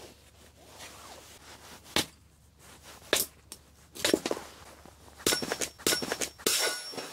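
Small hatchet chopping kindling off a wooden log round: sharp wooden knocks, a few spaced about a second apart, then quicker strikes later on. A short rustle follows near the end.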